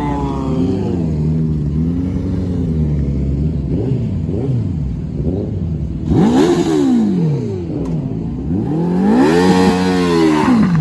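Superbike engines revving. The pitch climbs and falls again and again, with two loud rev surges, one about six seconds in and one near the end.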